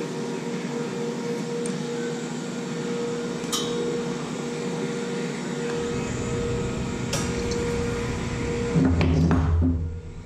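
Scratch-start TIG welding arc on steel from a small inverter welder: a steady hiss and hum, with a single metallic clink about three and a half seconds in. A low rumble comes in around six seconds and is loudest near the end, just as the hiss cuts out.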